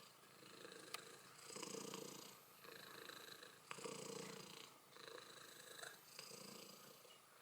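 Faint cat purring in a steady rhythm of swells about once a second, with a couple of small clicks.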